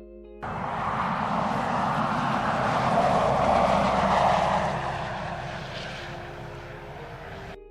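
Land Rover Defender 90 driving past, its engine and tyre noise swelling to a peak and then fading away. The sound cuts off suddenly near the end.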